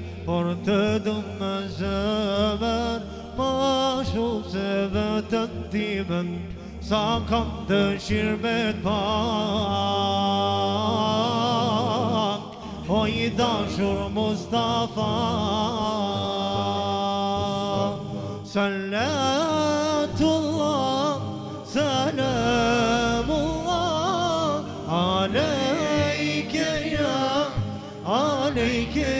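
Male voices chanting an Islamic devotional song through microphones and a PA, in long, wavering sung notes.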